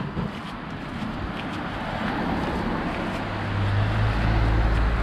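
Road traffic: a car passes close by on the road alongside, its low engine and tyre sound growing louder from about three seconds in.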